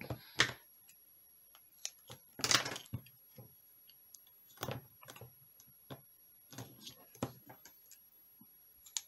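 Scattered light taps and rustles from card and a roll of adhesive tape being handled while the card's edges are taped; the loudest is a short noisy rustle about two and a half seconds in.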